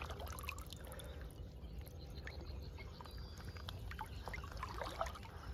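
Faint trickling and dripping of water, with scattered small ticks over a low steady rumble.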